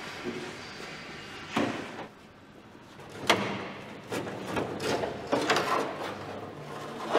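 Knocks and clanks of a bare aluminium BMW 507 body shell being handled and lifted off its wheeled dolly. There is one sharp knock, a louder one about three seconds in, and a run of clattering knocks after it.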